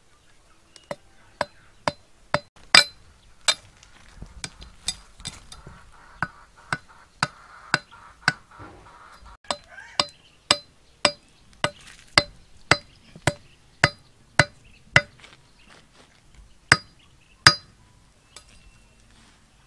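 Large flat knife blade chopping at a thin green bamboo stalk: a long string of sharp, clicking strikes, about two a second, stopping near the end.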